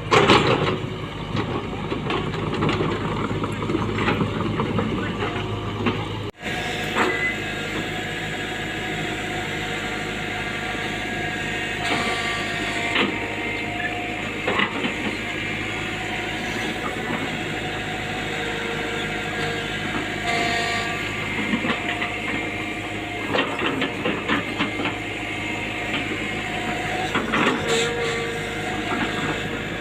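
Excavator's diesel engine running steadily, with scattered metallic clanks and scrapes from the machine working.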